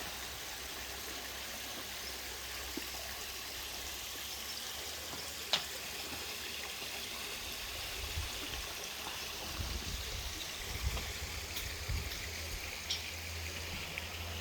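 Water running and trickling steadily down a small waterfall and stream into a pond. A single sharp click about five and a half seconds in, and low rumbling from about eight seconds in.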